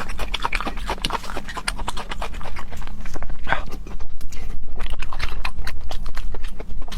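Close-miked wet chewing and lip-smacking of pig intestine and brain, eaten with the mouth open in rapid, irregular smacks. A steady low hum runs underneath.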